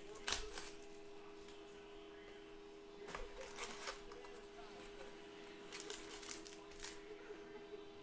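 A small cardboard trading-card box being opened by hand and a foil pack pulled out: scattered rustles and sharp clicks, loudest about a third of a second in. Under it a printer runs with a steady two-note hum that stops right at the end.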